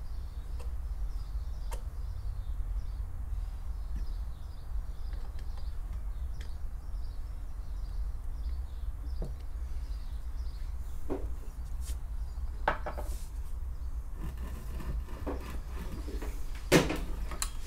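Scattered clicks and knocks of a screwdriver and parts being handled on a motorcycle twin-carburettor bank, the sharpest knock near the end, over a steady low rumble. Faint bird chirps repeat through most of it.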